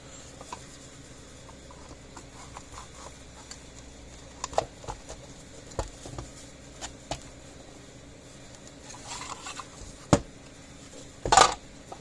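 Small clicks, taps and rustles from wires and plastic parts being handled inside a solar fence charger's housing. There is a sharp knock about ten seconds in and a louder short scrape near the end.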